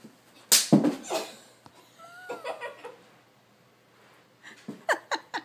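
A heavy thud of a person falling onto a carpeted floor about half a second in, followed by a short cry and, near the end, laughter.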